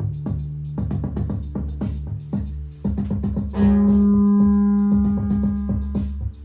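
Synthesizer and drum machine playing: a fast pattern of drum hits over a steady bass drone, with a loud held synth note coming in about halfway through and sustained for nearly three seconds.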